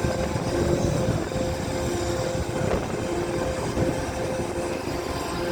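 A ship's engines running with a steady low rumble, and a faint droning hum that comes and goes over it.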